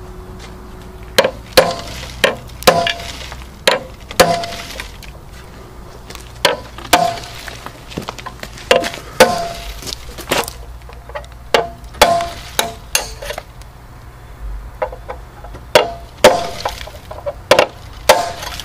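Ball-peen hammer striking a steel bar held as a punch against the rusted bolts of a bus radiator's angle-iron frame: about two dozen sharp metallic clanks with a short ring, in uneven bursts, driving out bolts seized or broken off by rust.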